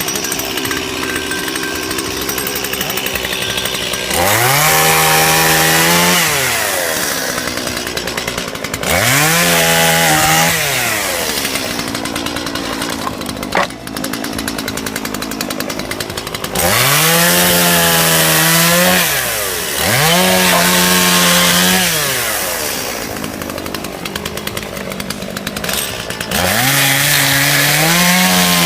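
Two-stroke chainsaw engine idling and being revved five times in a test run. Each time it climbs quickly to full speed, holds for about two seconds, then drops back to idle; the last rev is still held at the end.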